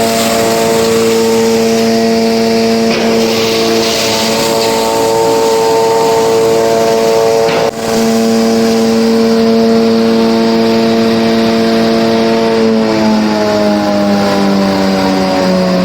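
Charcoal crusher (hammer mill) running loud with a steady whine, with hissing crunches as charcoal is crushed into powder near the start and around three to five seconds in. A brief break about eight seconds in, and in the last few seconds the whine slowly sinks in pitch.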